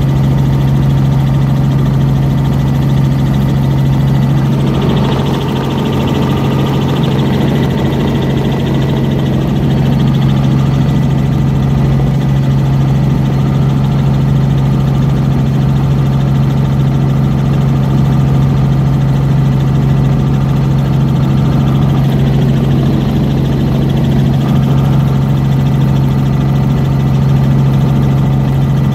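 Steady, loud drone of a small helicopter's engine and rotor heard from inside the cabin, a deep hum holding one pitch throughout.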